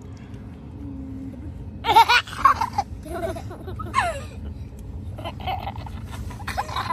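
A young child laughing and squealing in high, pitch-bending cries, loudest about two seconds in, with more giggling near the end. A steady low rumble runs underneath.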